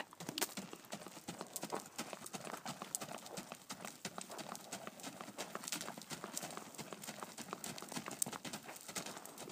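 Quarter Horse mare's hoofbeats on the packed dirt of a round pen as she circles, a steady run of faint, irregular hoof strikes.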